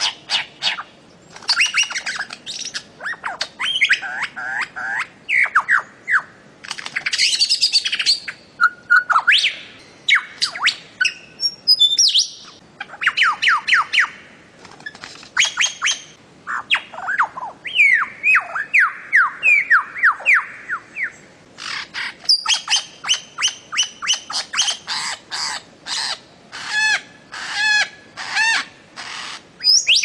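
Bird-of-paradise calling: a rapid, almost unbroken series of loud, harsh calls, many of them short notes sliding downward in pitch, with brief pauses between runs.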